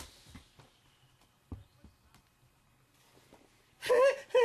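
Quiet room with a few faint soft knocks and one dull thump about a second and a half in. Near the end a high-pitched, bending character voice cries out.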